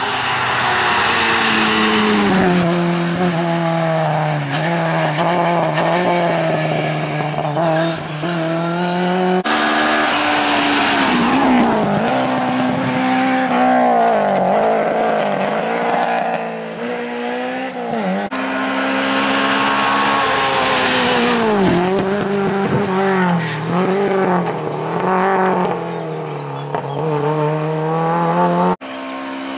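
Rally car engines driven hard on a tarmac stage, their pitch rising and dropping again and again through gear changes and corners. The sound switches abruptly three times as one car gives way to the next.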